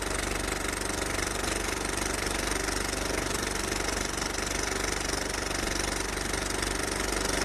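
An engine idling steadily, with a fast, even knocking pulse.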